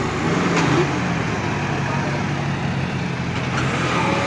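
Tractor diesel engine running steadily under heavy load, hauling a loaded trailer across soft ground, its exhaust puffing black smoke.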